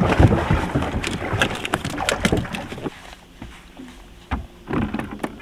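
Knocks and clatter from handling on a fishing boat, over rough rustling noise for the first three seconds. It goes quieter after that, with two louder knocks near the end.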